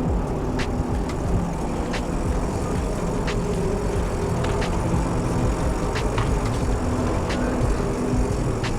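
Steady rumble of road traffic, with scattered light clicks.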